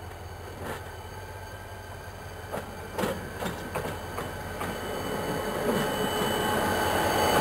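Renfe class 333 diesel-electric locomotive approaching, the running of its V16 diesel engine growing steadily louder, with a steady high whine. A few sharp clunks from the wheels on the track come in the first half.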